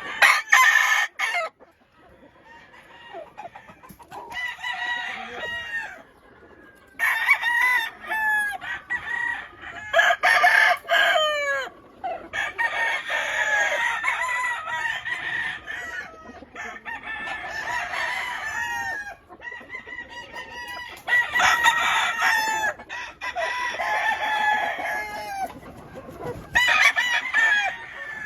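Many gamefowl roosters crowing, their calls overlapping in bursts of a few seconds with short lulls in between.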